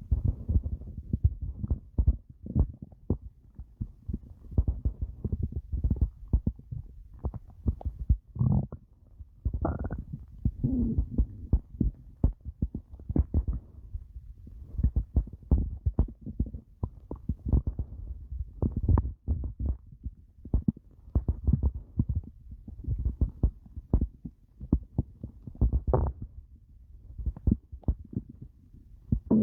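Stomach growling: a dense, irregular run of low pops and gurgles, with a few longer drawn-out gurgles among them.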